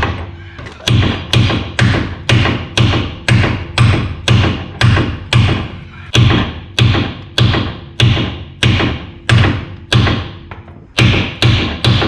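Steady hammer blows on metal, about two a second, each with a short ring, pausing briefly just before the end.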